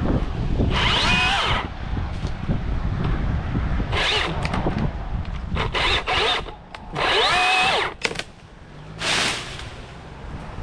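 Battery-powered chainsaw revved in short bursts, about five times, its electric motor whine rising as it spins up each time.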